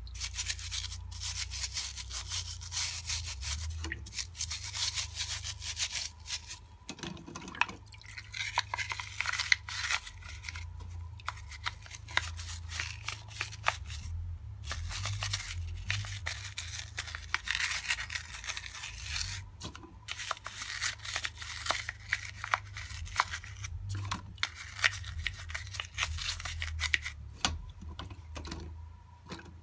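A stiff-bristled hand brush scrubs small wet plastic parts in quick back-and-forth strokes, in runs broken by a few short pauses, over a steady low hum.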